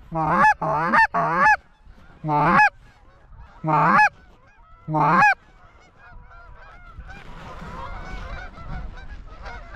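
Six loud two-note goose honks in the first five seconds, blown on a hand goose call to bring in the flock. From about six seconds on, a flock of Canada geese calls faintly in the distance, many voices overlapping.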